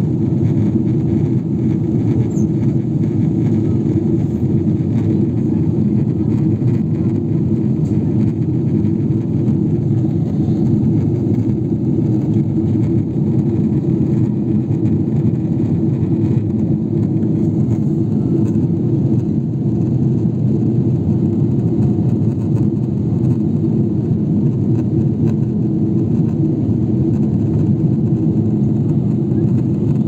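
Steady cabin noise inside a Boeing 777-300ER in flight: the even, low drone of its engines and the airflow past the fuselage, with no change in level.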